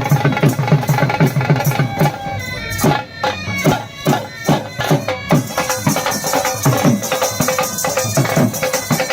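Traditional folk music: sustained melody tones over drumbeats, with rapid drum strokes in the first couple of seconds, then steadier, more spaced beats.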